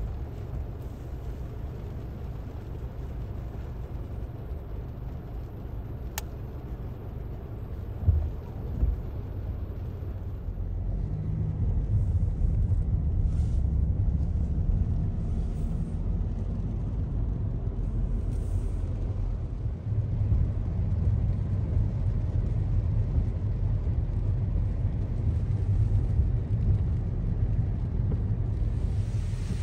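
Steady low rumble of road traffic, growing louder about twelve seconds in.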